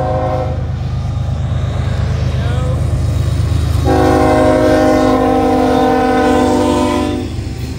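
Norfolk Southern diesel locomotives passing fast, their engines rumbling low. The air horn sounds a multi-note chord twice: a blast ending about half a second in, then a long blast from about four seconds in to about seven.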